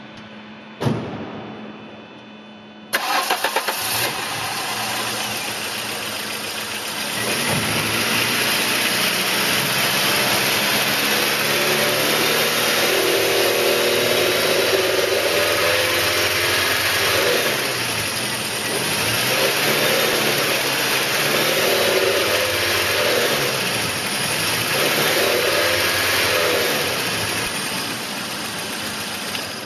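A 1999 VW Cabrio's 2.0-litre four-cylinder engine is cranked and starts about three seconds in, after a single thump. It then runs and is held at raised revs that rise and fall several times. The owner hears a rattle at around 2100 rpm whose cause he does not know.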